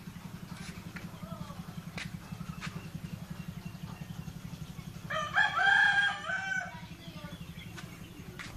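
A rooster crows once, a long call of about a second and a half that starts about five seconds in, over a steady low hum.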